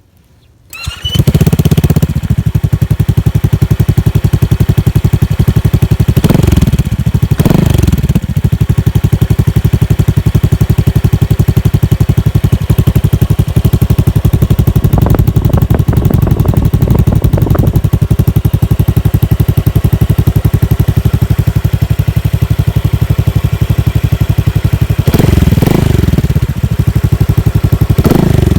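Honda Click/Vario 150i scooter's single-cylinder engine, exhausting through an aftermarket Akrapovic 370 mm muffler, starts up about a second in and idles steadily, with several short throttle blips in between.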